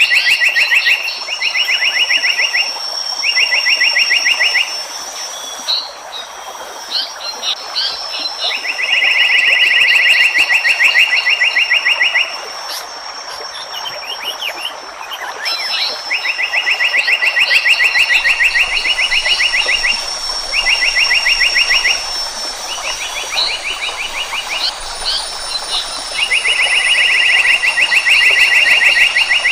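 Asian paradise flycatcher (seriwang) giving bursts of rapid, buzzy trilled notes, each burst lasting one to three seconds, repeated after short pauses. A steady high whine runs behind it for stretches, and other birds give scattered short chirps.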